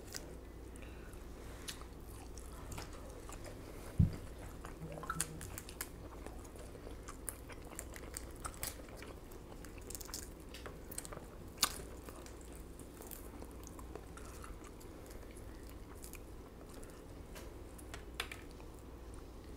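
Faint crackles and small mouth clicks of eating: charred, oven-burnt beef sausage being torn apart by hand and chewed. A single soft thump about four seconds in.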